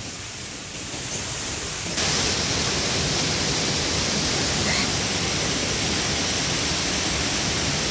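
Steady rushing water of a waterfall, which gets suddenly louder about two seconds in and then holds level.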